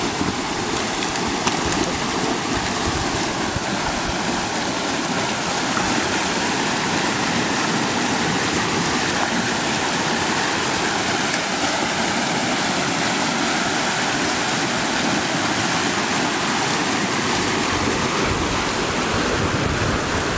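Steady rushing of fast-flowing floodwater, an even roar without breaks, with a faint tone underneath that slowly wavers up and down.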